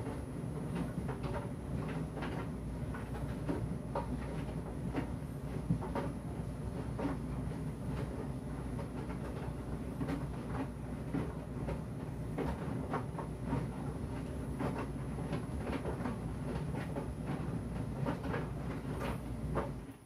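Electrolux tumble dryer running: the turning drum keeps up a steady low hum while the tumbling clothes drop against it in irregular soft knocks and clicks.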